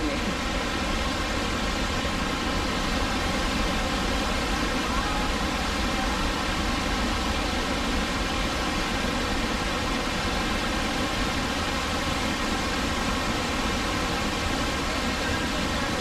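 An engine running steadily: a constant drone with an even rushing noise over it, unchanging throughout.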